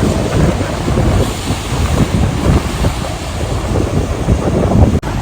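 Strong wind gusting and buffeting the microphone with a deep rumble, over ocean surf and swell breaking on the shore. The sound drops out for an instant near the end.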